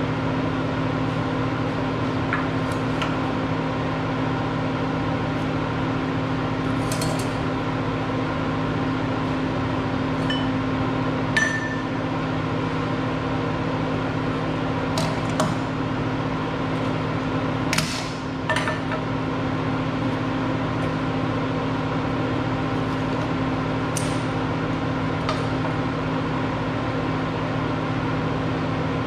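Steady machine hum from a running motor, with a few short metallic clinks and taps now and then, the sharpest about 11 and 18 seconds in.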